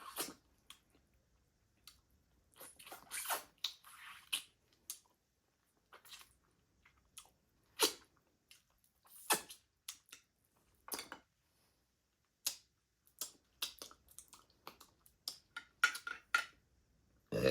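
Close-miked mouth sounds of someone eating smoked meat: wet lip smacks and chewing clicks, coming irregularly with short silent gaps between them.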